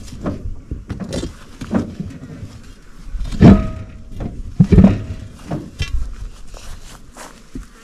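Outer dual wheel of a Chamberlain Countryman 6 tractor being levered and wriggled off its hub with a crowbar: a series of irregular knocks and thunks. The loudest comes about three and a half seconds in, with a short metallic ring, and another heavy knock follows about a second later.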